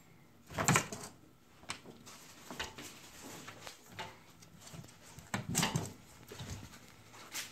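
A cat pawing and batting at a sliding glass door, making a run of irregular taps and knocks on the glass and frame. The loudest knocks come about half a second in and again around five and a half seconds.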